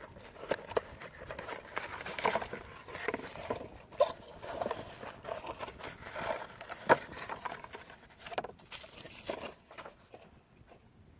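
Packaging being opened and handled by hand: irregular rustling, crinkling and small knocks, with one sharper click about seven seconds in, dying away near the end.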